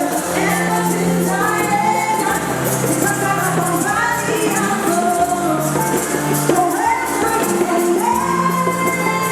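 A song performed live: singing over a band with steady bass notes and high percussion ticking on the beat.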